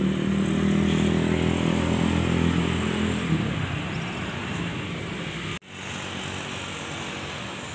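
A nearby motor vehicle engine, most like a motorcycle, running steadily at idle. It fades out after about three seconds, and a sudden cut leaves a quieter, even outdoor background.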